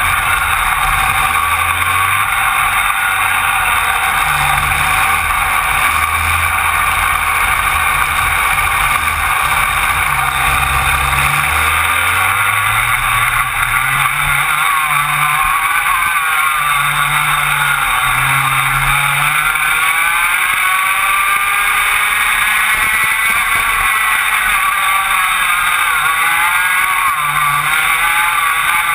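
Rotax Max 125 cc two-stroke kart engines at racing revs, heard on board, the pitch rising and falling repeatedly as the karts brake and accelerate through the corners, with other karts running close ahead.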